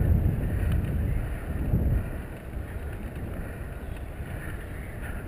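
Wind noise on the microphone of a moving tandem bicycle, a low rumble that drops noticeably about two seconds in.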